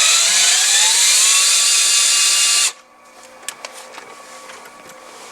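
Cordless screw gun driving a long fine-thread screw into the dashboard mount, its motor whine rising in pitch before it stops abruptly about two and a half seconds in. A few light clicks follow.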